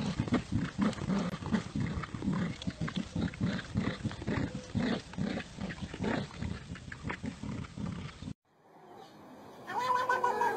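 Dogs growling in play while tugging on a toy, a quick run of short low growls. After a short silence near the end, a domestic cat starts a long, drawn-out yowling meow.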